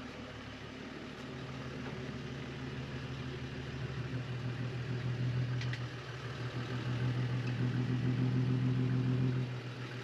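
Toyota Land Cruiser Troopy's diesel engine running at a low, steady idle as the vehicle reverses slowly right overhead, the drone growing louder as it comes close and dropping away near the end.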